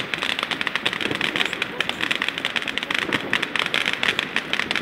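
Fireworks crackling: a dense, rapid patter of small pops running together at an even level, with no single big bang.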